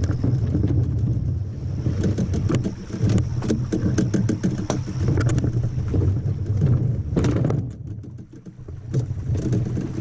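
Wind rumbling on the microphone, with scattered knocks and scrapes as a kevlar canoe is rolled over logs across a dam. The knocks come thickest in the middle, and the sound briefly drops a little before the end.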